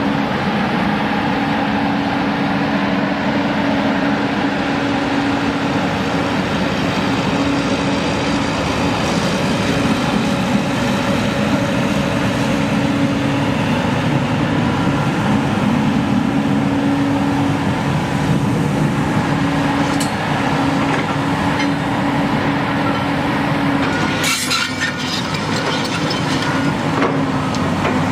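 2003 John Deere 330C LC crawler excavator's diesel engine running steadily, with a burst of clatter about three-quarters of the way through and a few scattered clicks.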